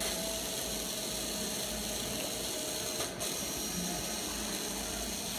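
Small plastic-geared DC hobby motor running steadily under an L293D motor driver. It drops out briefly twice, about three seconds apart, as the driver brakes it for 200 ms before it reverses direction.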